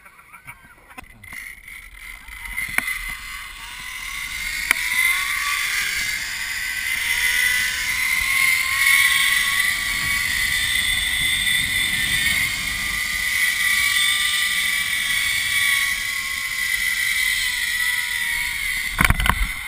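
Zipline trolley pulley wheels running along the steel cable with a whine that rises in pitch over the first several seconds as it picks up speed, then holds steady. Wind rushes over the microphone underneath. Near the end come a few sharp knocks as the trolley arrives at the landing platform.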